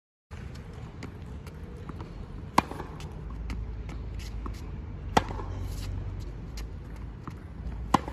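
A tennis racket striking the ball three times, about two and a half seconds apart, in forehand rally practice. Fainter ticks of the ball bouncing and shoes on the court fall between the hits, over a steady low background rumble.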